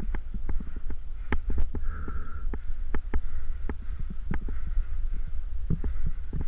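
Mountain bike rattling over a rough dirt trail, with irregular sharp clicks and knocks from the bike jolting over bumps. A steady low rumble of wind on the camera microphone runs underneath.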